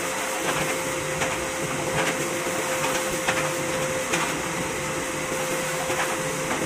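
Electric motor running steadily, a constant whirring noise with a steady whine, with faint brief scrapes every second or so.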